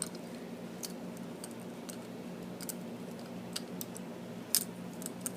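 Fidget spinners clicking and clacking against each other while being handled and stacked, in irregular small clicks with one louder clack about four and a half seconds in, over a steady low hum.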